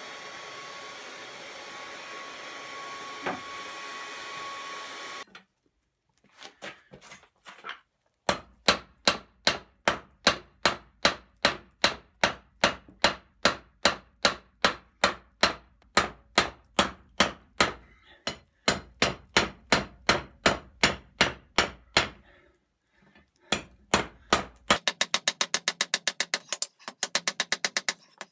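Hand hammer forging red-hot rebar on a small Harbor Freight anvil: regular ringing blows about two a second, a short pause, then a quick run of fast, rapid strikes near the end. Before the hammering starts, a steady rushing noise from the forge's hair-dryer blower.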